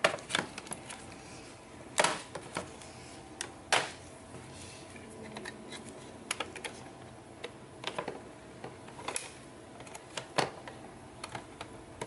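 Plastic snap clips of a Lenovo Z580 laptop's palm rest cover clicking and popping loose as the cover is pried off by hand: irregular sharp clicks, with a handful of louder snaps.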